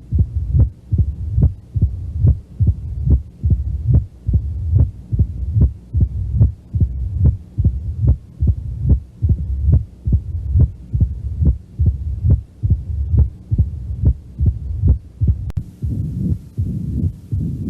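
Recorded heartbeat of a patient with mitral stenosis: regular beats at about 70 a minute, with a low rumbling murmur between them. A click comes about three-quarters of the way through, after which the rumble between the beats is stronger.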